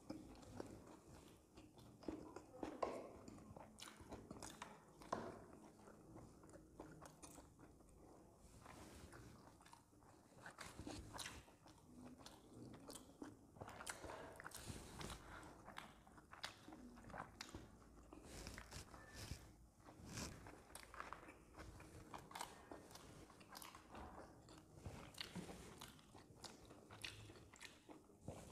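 Faint chewing and mouth sounds of people eating momos (dumplings), with many small irregular wet clicks and smacks.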